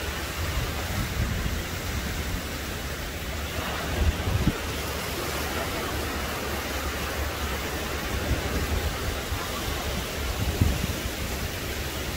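Small waves breaking and washing up on a sandy beach, giving a steady hiss of surf. Wind buffets the microphone with a low rumble, with a couple of louder bumps about four seconds in and near the end.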